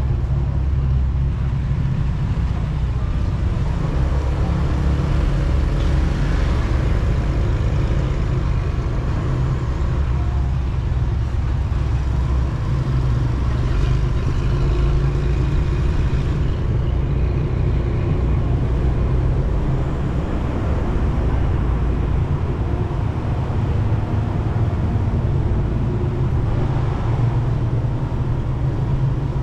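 A motorcycle engine running steadily at low speed, a continuous low rumble, with street traffic around it.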